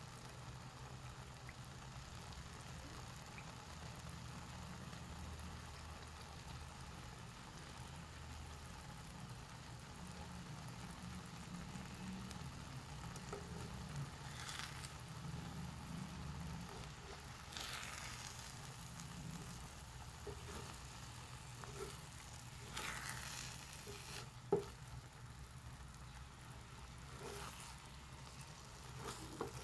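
Tomatoes and beaten eggs sizzling in a frying pan, with a few brief stirring scrapes of a wooden spatula and one sharp knock, the loudest sound, about three-quarters of the way through.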